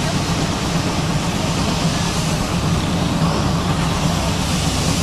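Steam locomotive with a train of coaches starting to move off, a steady low hum under continuous hiss.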